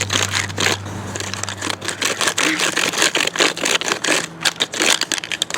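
A toy construction truck scraping and crunching into dry dirt as the ground is broken up: rapid, irregular scratching and crackling.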